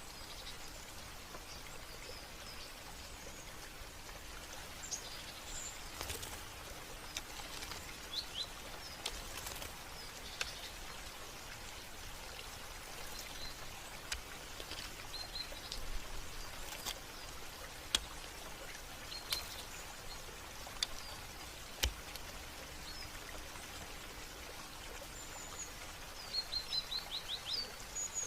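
Small birds chirping now and then over a steady hiss of running water, with a few sharp drip-like clicks. Near the end one bird gives a quick run of about five chirps.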